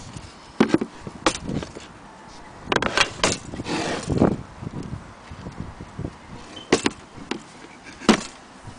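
Sharp wooden knocks and clicks as an antique rosewood jewellery box and its drawer are handled, with a short sliding scrape about four seconds in.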